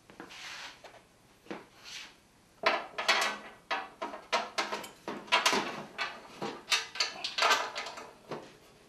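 Electric motor of a Grizzly G0654 jointer being shifted into its sheet-steel stand: a soft scrape at first, then from about two and a half seconds in a quick, irregular run of metal clunks and knocks.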